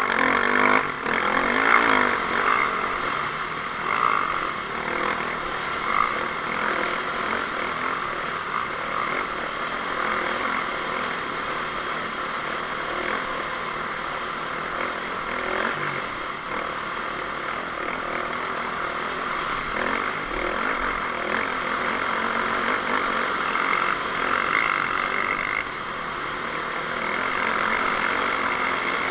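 Dirt bike engine running steadily at race pace, heard from a camera on the bike, under a constant rushing hiss of wind and tyre noise.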